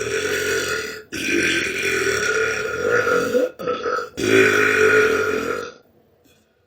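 A young woman belching: a run of long, drawn-out burps one after another, each lasting one to two seconds, with a short one in between. Each burp breaks off abruptly.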